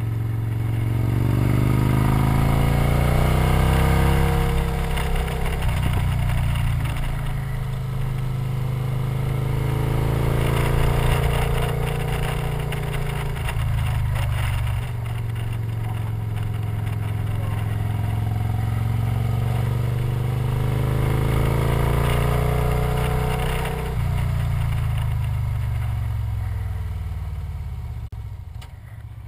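Victory motorcycle's V-twin engine under way on a winding mountain road, its pitch rising and dropping several times as the rider accelerates and eases off through the bends, then falling away near the end as the bike slows. A steady rush of wind and road noise runs under it.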